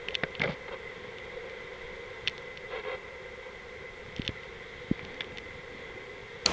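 A faint steady hum with scattered sharp clicks and ticks.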